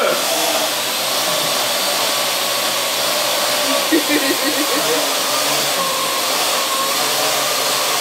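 Parrot AR.Drone quadcopter hovering: the steady whirring of its four electric rotors, with a humming tone that wavers slightly in pitch.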